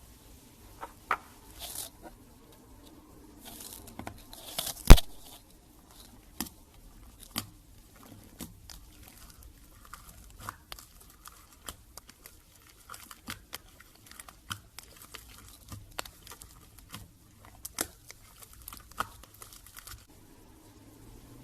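Slime being squeezed and crushed by hand, giving scattered crackles and small pops, with one loud pop about five seconds in.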